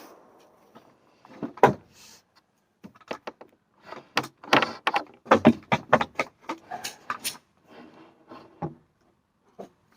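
The echo of an SKS rifle shot dies away in the first half second, then comes a run of irregular clicks and clacks of handling noise, with no further shots.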